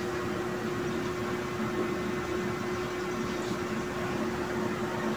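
Steady room hum and hiss from a running machine, with one constant low tone throughout.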